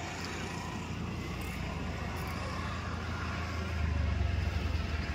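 Low engine rumble that grows louder about four seconds in.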